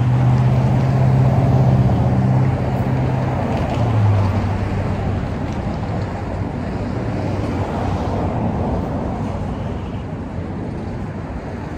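Road traffic: a motor vehicle's engine hum, low and steady, drops slightly in pitch about four seconds in. It sits over an even traffic noise that slowly fades.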